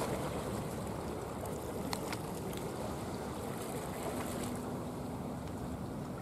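Seawater lapping and sloshing around concrete tetrapods, heard with wind on the microphone as a steady rushing noise. A few faint clicks come about two seconds in, and a faint steady hum joins near the end.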